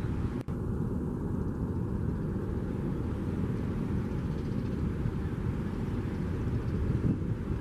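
Steady low rumble of wind on the microphone over open river water, with a short break in the sound about half a second in.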